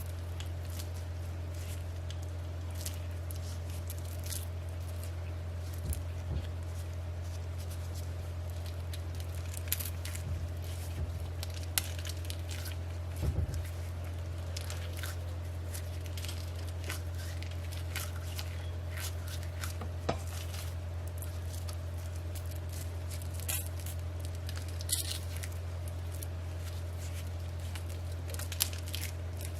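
Soft squishing and scattered small clicks of raw pork sausage meat and casing being worked by hand, over a steady low hum.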